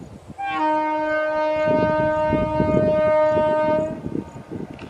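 Indian Railways WAP-4 electric locomotive's horn sounding one long, steady blast of about three and a half seconds, starting about half a second in. Under it, a train's wheels clatter and rumble on the track.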